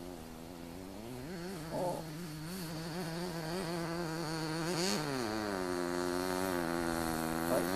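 Enya 19V two-stroke glow engine of a 1/8-scale RC buggy running, its pitch rising and falling with the throttle, with a sharp rev-up about five seconds in. It grows louder near the end as the buggy comes closer.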